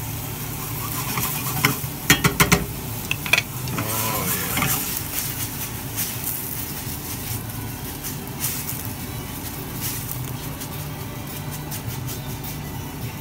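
Beef strips and vegetables sizzling in a hot stainless-steel frying pan over a high gas flame, over a steady low rumble. A wooden spoon knocks and scrapes against the pan a few times in the first few seconds, then the pan is shaken back and forth on the burner to toss the food.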